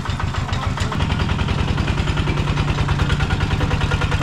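A vehicle engine running steadily with an even, rapid throb.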